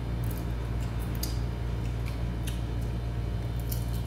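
Scattered short clicks and cracks from crab being eaten, over a steady low hum.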